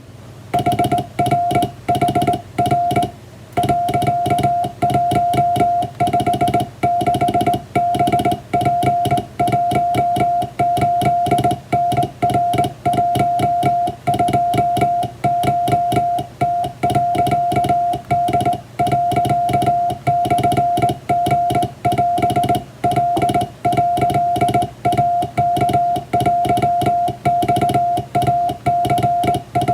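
Japanese wabun Morse code sent by hand on a straight key: a steady high beep keyed on and off in dots and dashes, with short pauses between letters and words.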